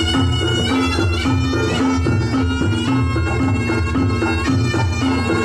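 Reog Ponorogo gamelan music: a slompret (Javanese shawm) plays a nasal, reedy melody in quick-changing notes over a steady low drone and drumming.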